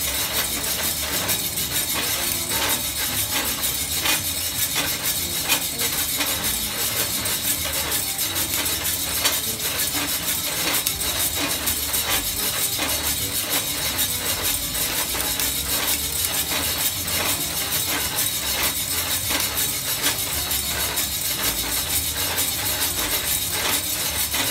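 Coffee beans tumbling and rattling inside a homemade stainless-steel drum roaster as the drum turns: a dense, steady run of small clicks over a continuous hiss. The roast is just short of second crack.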